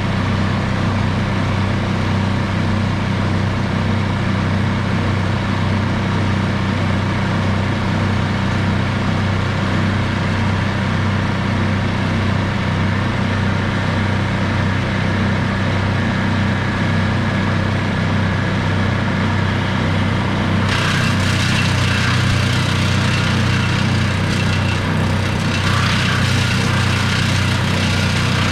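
A motor engine running steadily at a constant speed. About twenty seconds in, a harsher, hissier noise joins it and the overall sound gets a little louder.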